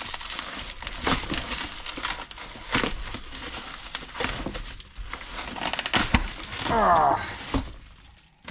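Bubble wrap, plastic bags and a cardboard box crinkling and rustling as a carburettor is dug out and unwrapped, with small knocks throughout. A brief squeaky sweep about seven seconds in is the loudest moment.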